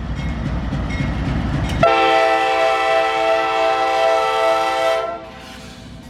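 Train rumbling, then a locomotive's horn sounds one long chord blast of about three and a half seconds that cuts off, leaving the train running more quietly.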